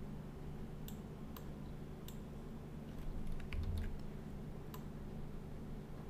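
Scattered clicks of a computer mouse and keyboard, a few short isolated clicks with a small cluster about halfway through, over a steady low hum.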